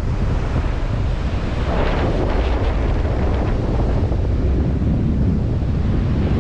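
Strong wind buffeting the microphone in a low, steady rumble, with ocean surf hissing underneath and swelling briefly about two seconds in.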